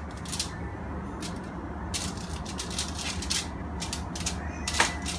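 Aluminium foil crinkling and crackling in irregular bursts as raw ribs are handled on a foil-lined baking tray, with a sharper click near the end.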